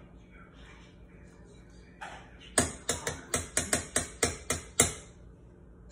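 A spoon rapped sharply against a container about ten times in quick succession, roughly four taps a second, starting a little over halfway in.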